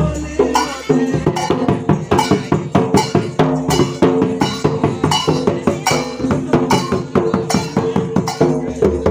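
A hand-beaten double-headed barrel drum (dhol) playing a fast, steady rhythm, with small metal hand cymbals clashing along with it.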